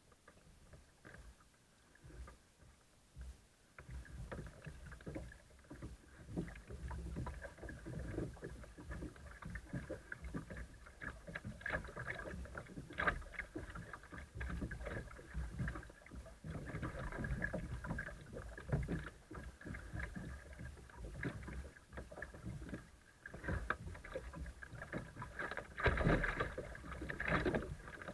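Water sloshing and splashing against a plastic kayak's hull as it drifts into a riffle, picked up right at the bow. It starts almost silent, then runs as a continuous uneven rumble with splashy ticks that grows louder and choppier near the end as the water turns rough.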